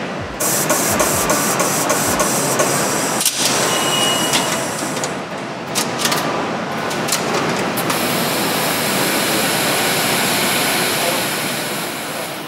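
Multi-spindle automated nutrunner tightening all the cylinder head bolts of an LS7 V8 at once: a loud mechanical whirring and hiss with a run of rapid clicks in the first few seconds. The bolts are being taken to a torque plus an angle, 30 newton metres then a further 160 degrees.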